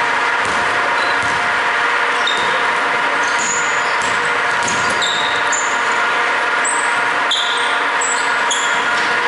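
Basketball game on a hardwood court: sneakers squeaking on the floor many times in short high chirps, with the thud of the ball bouncing, over a steady background hum.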